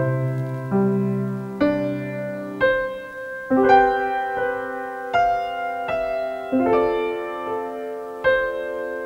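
Slow background piano music: notes and chords struck about once a second, each left to ring and fade.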